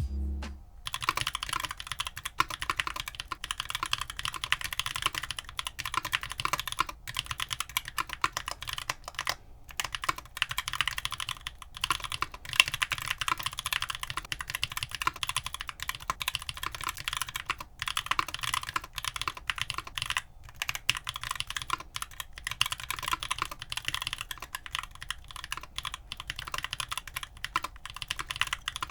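Steady typing on a mechanical keyboard fitted with stock, unlubed Keebfront Doom long-pole tactile switches: a continuous rapid run of keystroke clacks, starting about a second in.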